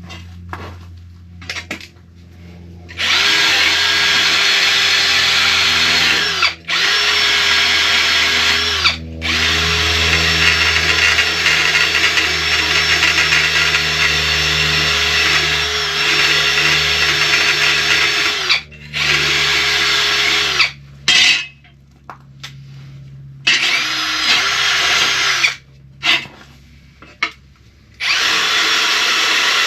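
Handheld drill-type power tool used to clean up a part, run in repeated bursts. Its motor whine rises in pitch as it spins up and falls as it stops, with one long run of about ten seconds in the middle and several short ones.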